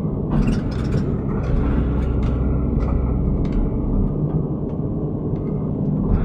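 Hydraulic excavator's diesel engine running steadily under load, with scattered sharp clanks and knocks.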